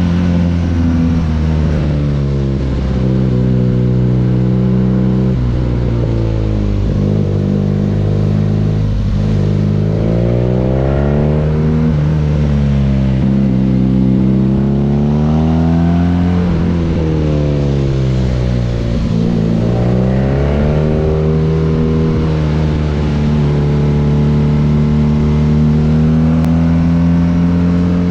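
BMW R nineT's 1170 cc boxer twin running through an Akrapovic exhaust under way. The revs climb and fall over and over, with several sharp drops as the throttle closes or a gear changes.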